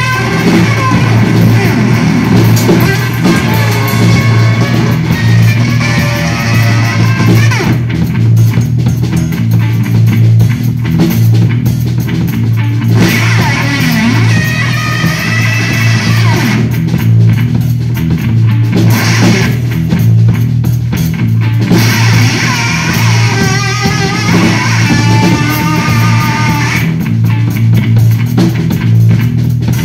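Electric bass guitar played through effects pedals with a drum kit, a loud instrumental bass-and-drums piece. A heavy low bass line pulses underneath, with higher wavering effect tones and a bright noisy top end that drop out and come back several times.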